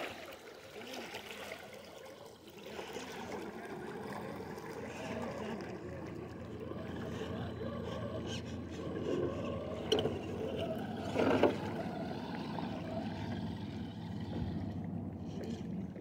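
Redcat Gen8 1/10-scale RC rock crawler on a 2S battery, its electric motor and geared drivetrain running as it crawls over rocks, with tyres scrabbling on stone. Two sharp knocks, about ten and eleven seconds in, are the loudest sounds.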